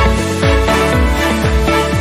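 Background music with a steady beat and deep, downward-sliding bass notes under sustained tones.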